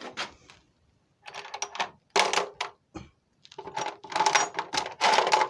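Small metal lathe parts and tooling clinking and rattling as they are handled and sorted in a box, in several bursts of clatter with a metallic ring, the longest near the end.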